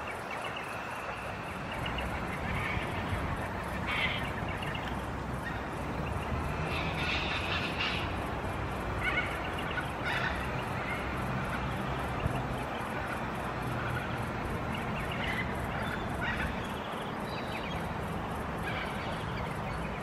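Long-billed corellas calling now and then with short, scattered calls, over a steady low rumble.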